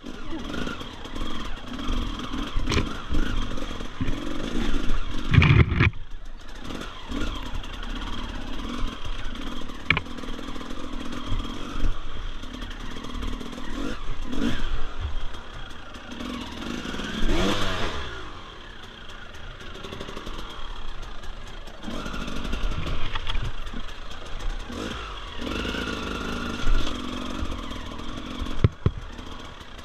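Dirt bike engine running under changing throttle, its pitch rising and falling, with one clear rev up and back down about two-thirds of the way through. Occasional sharp knocks and clatter come through the engine sound.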